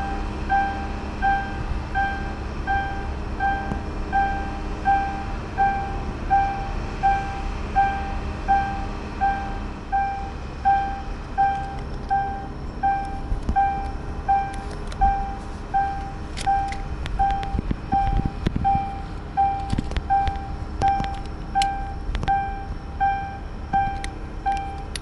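A repeating chime-like tone sounding about one and a half times a second, each pulse striking and fading quickly, over a steady low rumble. From about halfway through, scattered sharp clicks join in.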